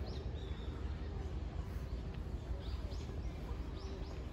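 Small birds chirping several times in short, high, falling calls over a steady low outdoor rumble.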